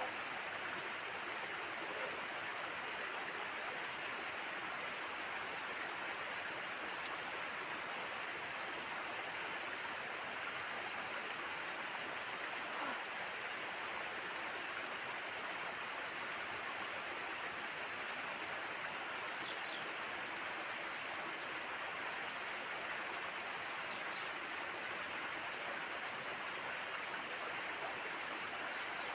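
A steady, even rushing noise that does not change, with a couple of faint high chirps about two-thirds of the way through.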